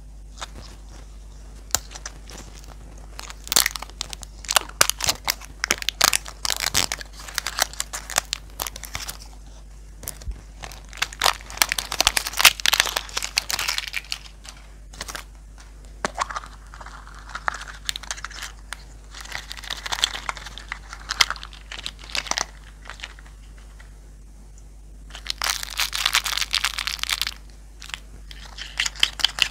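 Thin plastic wrapper crinkling and crackling as it is peeled off a toy-lollipop ball, in three stretches of rustling with sharp little clicks, separated by short pauses.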